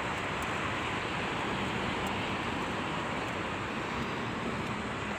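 Steady noise of road traffic, an even hiss with no single vehicle standing out.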